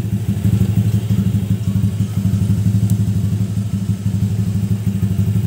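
Honda Vario 150 scooter's single-cylinder engine idling steadily with an even low pulse.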